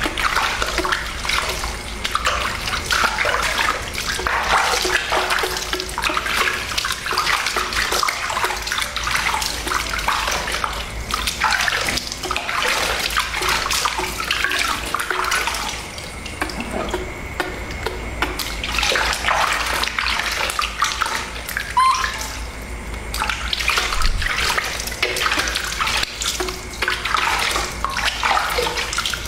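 Water splashing and dripping as a baby monkey is rinsed and rubbed by hand over a plastic basin.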